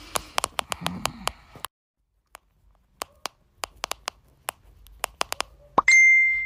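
Camera shutter clicks in quick, irregular runs, with a short pause between runs. Near the end comes a loud, steady, high beep lasting under a second.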